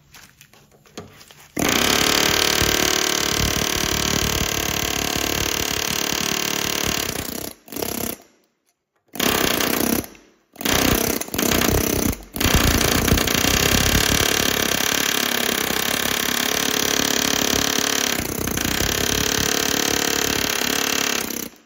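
Pneumatic air hammer with a chisel bit hammering against a steel truck frame's leaf spring hanger, knocking off the slit rivet heads. It starts about a second and a half in and runs for several seconds, stops and starts in short bursts through the middle, then runs in one long stretch until just before the end.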